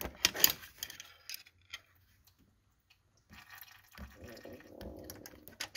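Brake fluid and air being pushed out of the open clutch bleeder screw on a Ford Focus as the clutch pedal is pressed, during bleeding of the clutch hydraulic system after a master cylinder replacement. A few sharp clicks in the first second or so, then after a short pause a faint wet flowing sound.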